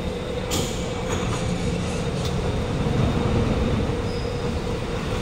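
Alstom Movia R151 metro train standing at the station platform, its equipment giving a steady hum. A short hiss comes about half a second in.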